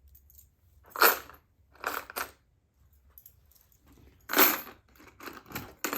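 Small steel driver bits clinking and clattering as they are dropped and shuffled into a plastic organizer box, in short bursts about one second in and around two seconds, then a busier run of clatter from about four seconds on.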